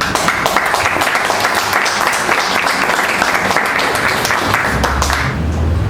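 Audience applauding, a dense patter of many clapping hands that dies away about five seconds in.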